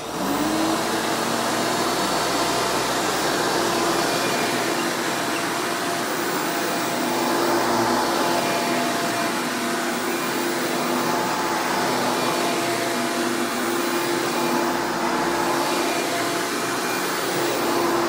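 Hoover Legacy WidePath upright vacuum, fitted with a Hoover Breathe Easy motor, switched on: the motor spins up within about half a second, then runs steadily and loudly while the vacuum is pushed over carpet.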